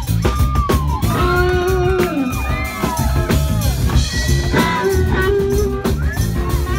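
Live funk band playing: a drum kit and electric bass guitar under a lead line of bending, sliding notes.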